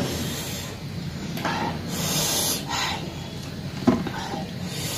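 People eating a rice meal by hand: several short hissing breaths and mouth noises while chewing, and a single knock about four seconds in.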